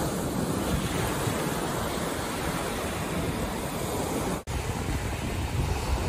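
Ocean surf washing steadily onto a sandy beach, with wind rumbling on the microphone. The sound cuts out for an instant about four and a half seconds in, then resumes with a heavier low rumble.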